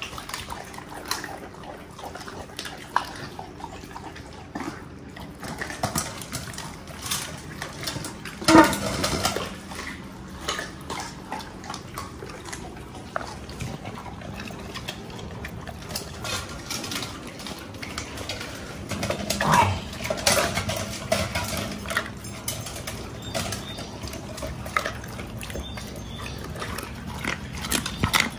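Dogs chewing and crunching raw chicken, with irregular wet crackling and clicking as bones break, and slurping and licking at a stainless steel bowl. The loudest burst comes about eight and a half seconds in, with another busy stretch around twenty seconds in.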